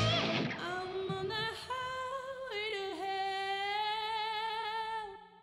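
The band's last chord dies away in the first half second, leaving a woman's singing voice alone on a long final note. Her pitch steps up, dips a little about two and a half seconds in, and is then held until it stops just before the end.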